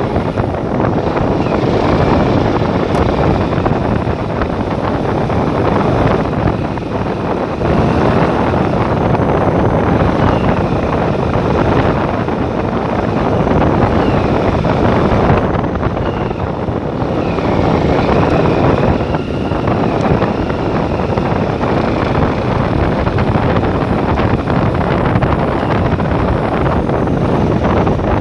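A vehicle on the move, its engine and road noise under loud, steady wind buffeting the microphone. A faint high wavering whine comes and goes now and then.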